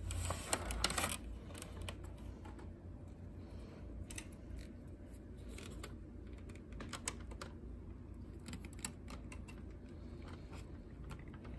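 Hands handling a CRT monitor's circuit boards and wiring: a scuffle in the first second, then scattered small clicks as a push-on wire connector is fitted to a board pin.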